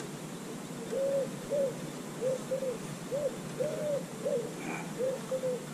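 Wood pigeon cooing: repeated low, soft five-note phrases with a longer second note, about two notes a second, starting about a second in.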